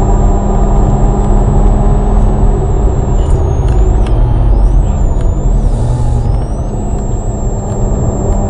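Mazda RX-8's twin-rotor Wankel rotary engine running hard under load, heard from inside the cabin at track speed along with road and wind noise, easing off a little about six seconds in.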